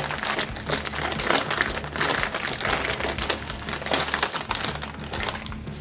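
Foil potato chip bag crinkling and rustling as it is opened and handled, a dense run of crackles that eases off near the end.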